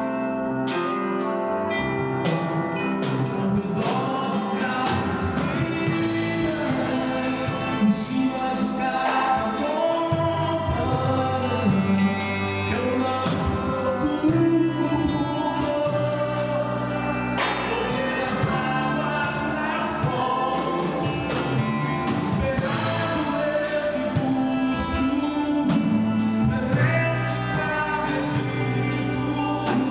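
Gospel worship music: a praise group singing over a band, with regular drum and cymbal hits.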